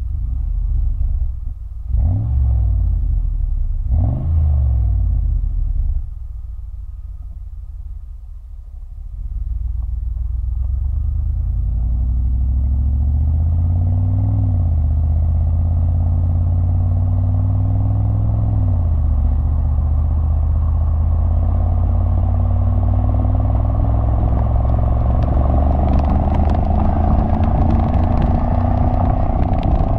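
2011 Mercedes-Benz G55 AMG's supercharged V8 heard at its side exhaust. Two quick revs come in the first few seconds, then a hard pull whose note climbs, drops back at two upshifts and then climbs slowly into a steady highway-speed drone, with wind noise building near the end.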